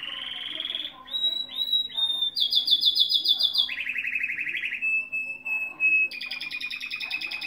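Domestic canary singing a long, continuous song: rapid trills of fast repeated notes, each held for about a second before jumping to a new pitch, with a steady clear whistle in the middle.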